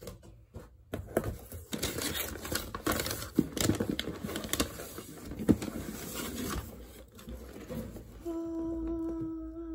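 Paper rustling and crinkling with small clicks and knocks as receipt papers and the cardboard shoebox are handled. Near the end a woman's voice holds one wavering hummed note for about two seconds.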